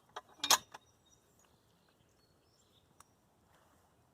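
A brief rustle or scuff about half a second in, then quiet outdoor background with faint, short, high bird chirps and a single small tick.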